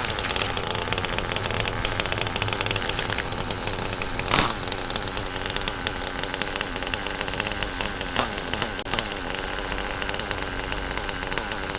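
Small nitro glow engine of a radio-controlled car running steadily, with a sharp click about four seconds in.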